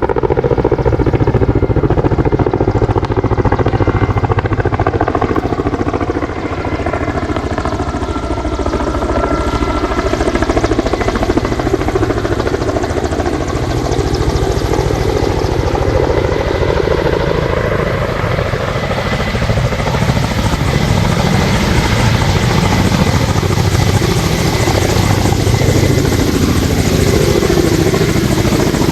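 Emergency-service helicopter hovering very low over water while pumping water up into its bucket: a loud, steady rotor and turbine beat. A rushing hiss builds from about halfway through.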